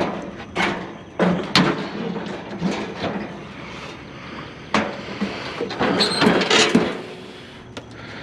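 Irregular knocks, clanks and scrapes as a lightweight grill is handled and shifted on a trailer, with a cluster of them a couple of seconds before the end.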